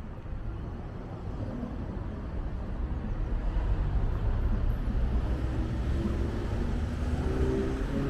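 Low rumble of city road traffic, growing louder about three seconds in as a vehicle's engine draws nearer.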